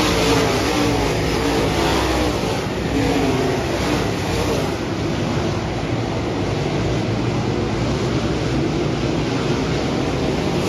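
Dirt-track modified race cars' V8 engines revving as cars pass close by. After about five seconds the engine noise settles into a steadier, duller sound.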